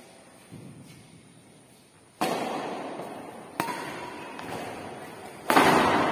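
Badminton racket strikes on a shuttlecock during a rally: a faint hit about half a second in, then three loud hits roughly one and a half to two seconds apart, the last the loudest. Each sharp crack rings on in the echo of a large bare hall.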